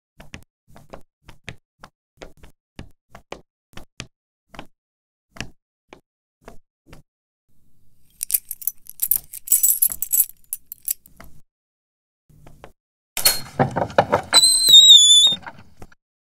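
Footsteps on a concrete walkway, then a bunch of keys jingling at the door lock about eight seconds in. Near the end the lock clatters and the door hinge gives a wavering high squeak as the door swings open.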